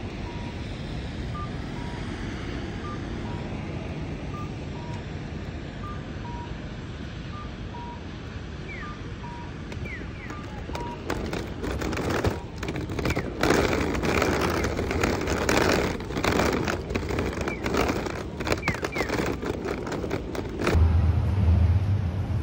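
Hard suitcase wheels rumbling over a tiled floor, with a repeating two-note electronic beep chime. About halfway through it turns to louder knocking and clatter as the suitcase is taken down stairs. Near the end, wind buffets the microphone.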